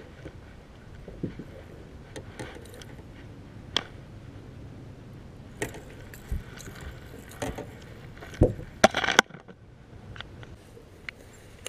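Knocks and rattles of a largemouth bass being landed and handled on a bass boat's carpeted deck, with the crankbait's hooks and the rod clattering. A flurry of loud knocks and rattles comes about eight to nine seconds in and stops suddenly.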